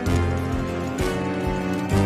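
Instrumental background music with a bass line, the notes changing about every half second.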